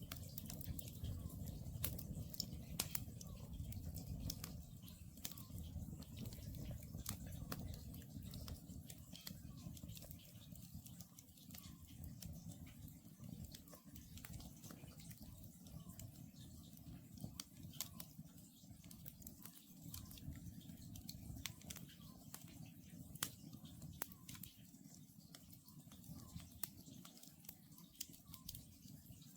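Wood campfire crackling with scattered sharp pops over a low rumble, louder in the first half. A faint, distant Oriental scops owl calls a short note repeated every second or two.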